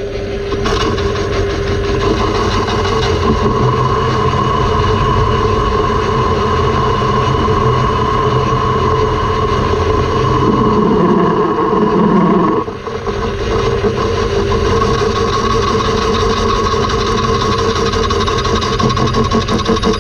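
Metal lathe running under power with a steady gear whine while the cutting tool takes a light facing cut across the end of a gear blank. The cutting sound shifts about ten seconds in and drops away briefly a couple of seconds later, then the lathe runs on.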